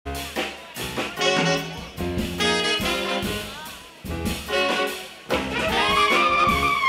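A live jazz big band's horn section of saxophones, trumpet, trombone and tuba plays short, punchy ensemble chords over the rhythm section. A long held note slides upward near the end.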